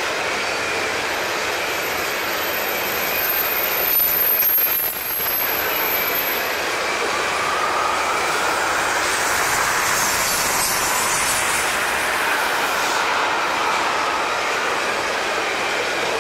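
Freight train tank cars rolling past, a steady rumble of steel wheels on rail. A thin, high wheel squeal sounds over roughly the first six seconds.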